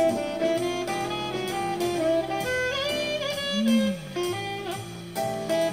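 Background music with a melody of held notes over a steady beat.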